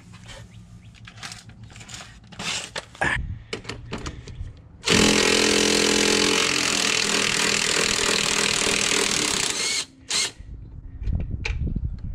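Makita 18-volt cordless power tool running steadily for about five seconds, turning a socket on a wobble extension on an engine mount bolt. Clicks and knocks of the tool and socket being handled come before and after.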